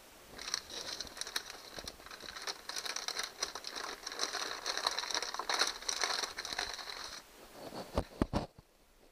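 Packaging of a bike shift cable crinkling and rustling as it is handled, for about seven seconds, followed by a few dull knocks near the end.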